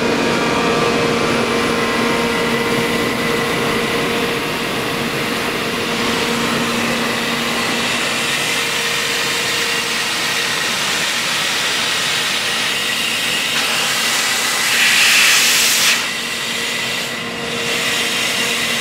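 Hydrovane 148 30 hp rotary vane air compressor running steadily on its electric motor, with a steady hum and a high whine. Near the end a louder rush of hiss lasts about a second and a half, after which it runs a little quieter.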